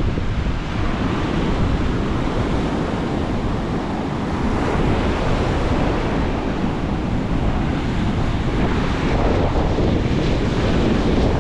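Strong onshore wind buffeting the microphone in a steady low rumble over the rush of rough Atlantic surf breaking on the beach.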